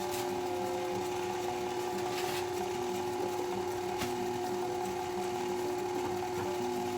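Electric mixer running steadily on low, its motor giving an even hum as it beats muffin batter, with a few light knocks.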